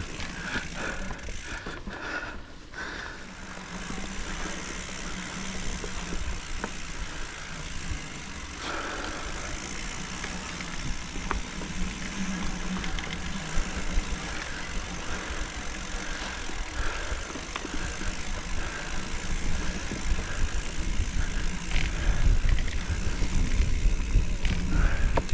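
Hardtail mountain bike being ridden along a dirt trail: tyres rolling on the ground with a low rumble, and small rattles and clicks from the bike over bumps. It grows louder over the last few seconds.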